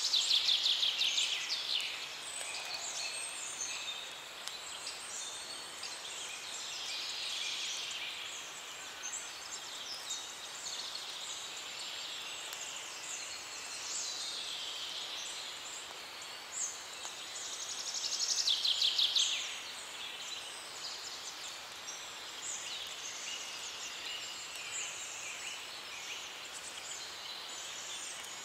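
Wild birds chirping and calling in a steady outdoor ambience, with a loud rapid trill near the start and another about 18 seconds in.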